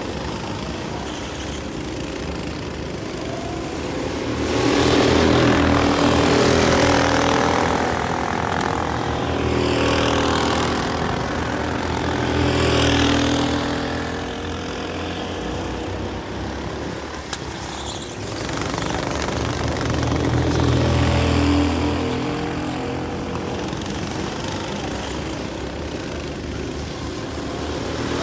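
Racing go-kart engines running as several karts lap the track, rising and falling in pitch and swelling louder several times as karts pass close.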